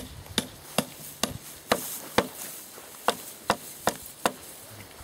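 A hand tool striking wood in a quick series of sharp blows, about two a second, with a short pause midway.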